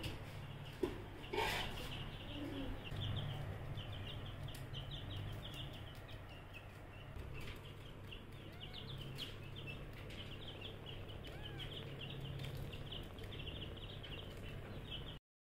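Small birds chirping rapidly and continuously in the background, with a low steady hum underneath. There are two short knocks about a second in.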